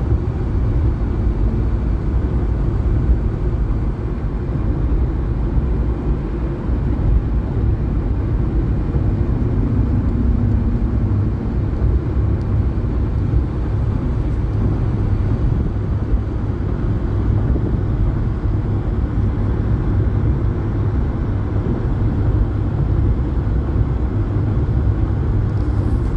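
Steady low rumble of tyre and engine noise inside a car's cabin as it drives along a highway.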